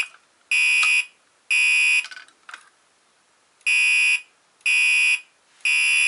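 Fire alarm horn sounding in a temporal-3 evacuation pattern: half-second blasts, three to a group with a pause of about a second and a half between groups. It is driven by a homemade relay latching panel that has just been activated.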